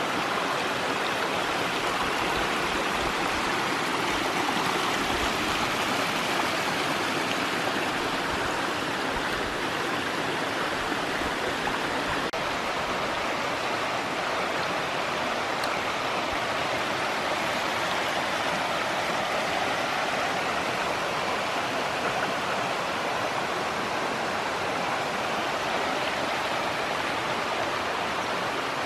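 Small rocky mountain stream running over stones: a steady rush of water.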